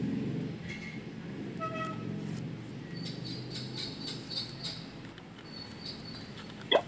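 Low steady background hum with faint handling noise while the cards are swapped in a talking flashcard reader, then a sharp click near the end as a card is pushed into the reader's slot.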